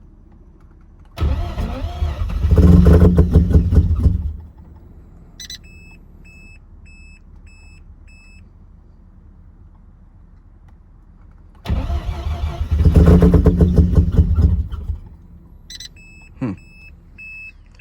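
Mazda RX-8's swapped 13B-REW rotary engine tries to start twice. Each time it cranks, fires briefly with rapid pulsing and then dies, the sign of a flooded rotary that won't stay running. After each try comes a run of about five short, high electronic beeps.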